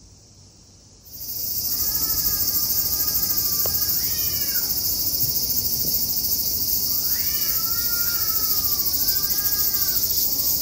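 Loud, steady cicada drone that starts suddenly about a second in. Over it a cat meows several times in drawn-out calls.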